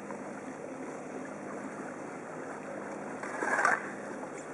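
Steady rush of water and wind noise aboard a boat in ice-strewn sea, with one brief louder rush about three and a half seconds in.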